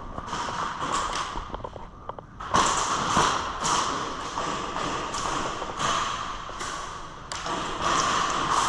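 A run of sharp taps, evenly spaced at about two a second, starting a couple of seconds in, over a steady hiss.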